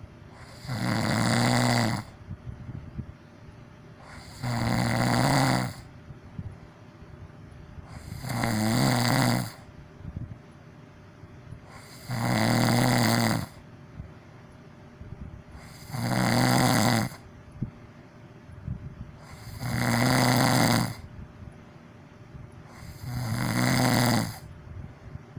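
A person snoring loudly, seven snores about four seconds apart, each lasting just over a second, with much quieter sound between.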